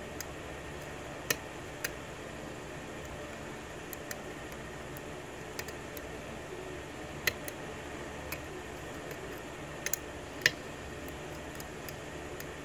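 Small, sharp metal clicks, irregularly spaced, as a hook pick works the pin stacks of a six-pin key-in-knob lock cylinder held under a tension wrench during single-pin picking. Three clicks stand out as the loudest, about a second in, about seven seconds in and near the end. A steady hiss runs underneath.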